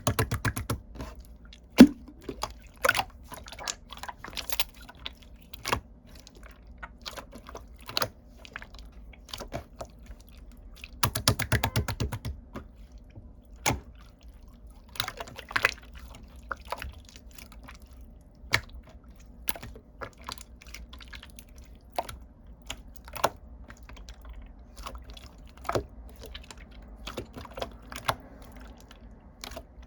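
Irregular sharp clicks and taps, with a short run of rapid clicking at the start and another about eleven seconds in.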